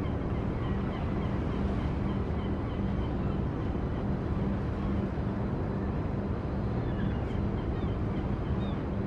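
Boat engine running steadily with a low, pulsing drone, mixed with wind on the microphone and the rush of water.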